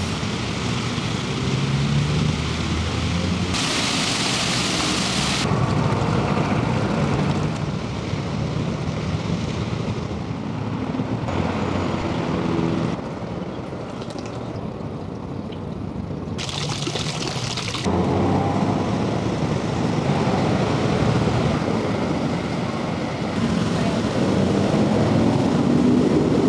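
Outdoor fountain water splashing and falling in a steady rushing hiss, its brightness shifting abruptly a few times.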